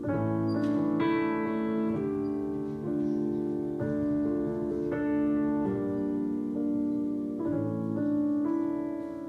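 Piano playing a slow introduction of sustained chords that change about once a second, leading into a ballad.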